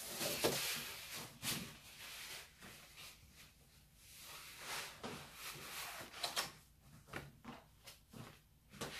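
Paper and card handling: glossy art prints rustling and sliding as they are gathered and slipped into a card folder, with short scrapes and taps of card on the tabletop.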